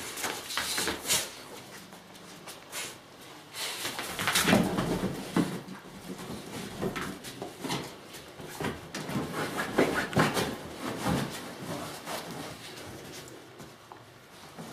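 Basenji dogs wrestling and scrambling over a sofa and dog beds: a run of scuffling, paw thumps and knocks, busiest about four seconds in and again around ten seconds.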